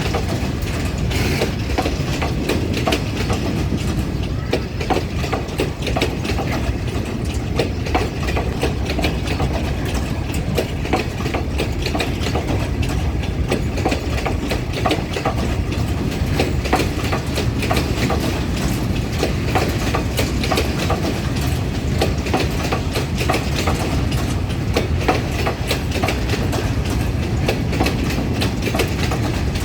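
Freight train wagons rolling past, a steady rumble of wheels on rails with a dense run of clicks and clacks over the rail joints.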